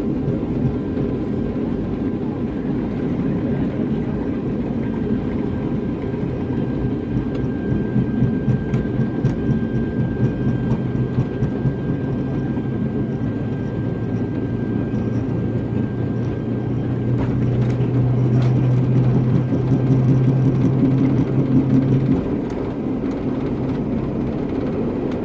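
Steady rumble and whir in the cabin of a Boeing 757 airliner as it takes off and climbs, heard by a passenger. A low hum swells in the second half and stops abruptly near the end.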